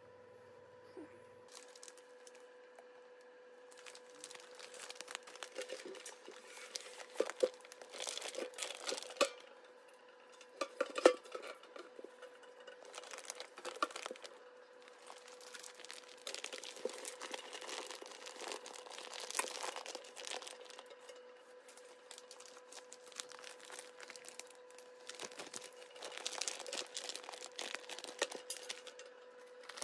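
Plastic grain-filled mushroom grow bags crinkling and rustling in irregular bursts as they are handled and packed into a metal pressure-cooker pot, with one sharp knock about eleven seconds in. A faint steady hum sits underneath.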